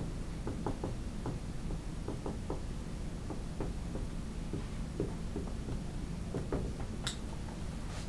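Faint, irregular light clicks and taps of a pen being used to write or draw, with one sharper click about seven seconds in, over a steady low hum.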